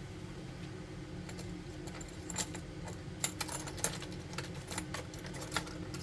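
Small metal repair tools clicking and tapping lightly and irregularly against a phone and work surface, over a steady electrical hum.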